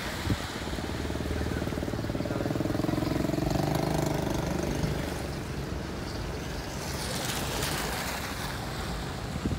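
Car driving along a rain-soaked, flooded street: steady engine hum and the hiss of tyres through water, with an engine note swelling for a few seconds in the middle and a brief louder splash of hiss near the end.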